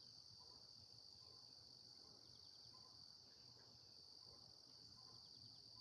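Faint, steady, high-pitched chorus of crickets.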